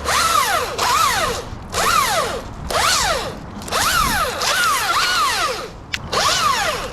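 Hand pruning saw cutting through wood in steady back-and-forth strokes, a little under one a second, each stroke a rasping pass with a rising-then-falling squeal from the blade.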